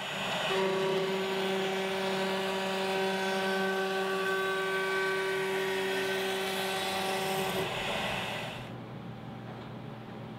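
Avid CNC router spindle milling a plywood jig: a steady whine over a cutting hiss as the bit cuts into the plywood. The cutting noise drops away about eight seconds in, leaving a quieter hum.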